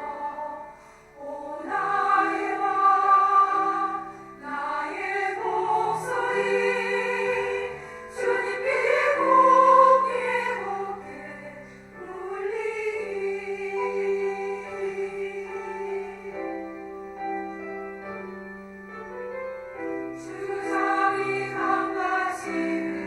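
Women's choir singing a hymn with piano accompaniment, the voices swelling louder in places and easing off between phrases.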